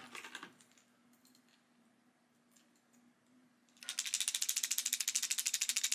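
Strike King KVD 1.5 squarebill crankbait, rattling version, shaken near the microphone: its internal rattles clatter in a fast, even stream of clicks starting about four seconds in, after a few faint handling clicks. It is a deep rattle, close to a one-knocker, not the high-pitched sound of the hard-knock version.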